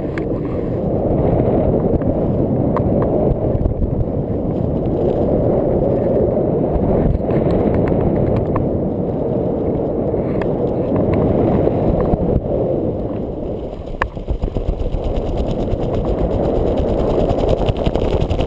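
Wind rushing over a camera microphone on a paraglider in flight: a loud, steady low rumble of buffeting air that dips briefly and picks up again, with a few light clicks, the sharpest about fourteen seconds in.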